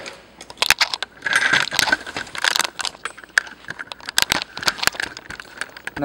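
Small hard parts and tools being handled and set down on a wooden workbench: a run of sharp clicks and clatters with some rustling between them.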